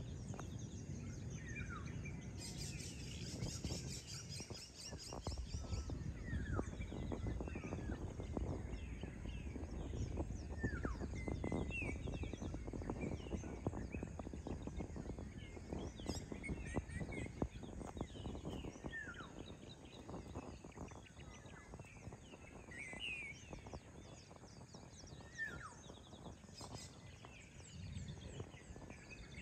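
Outdoor dawn ambience: birds calling here and there with short chirps and whistles over a steady low rumble. A high, rapid buzzy trill sounds for about three seconds near the start.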